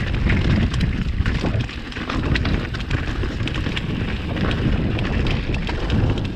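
Mountain bike rolling fast down a rocky, gravelly trail: wind buffeting the microphone over the rumble of the tyres, with many quick clicks and knocks as the bike rattles over the stones.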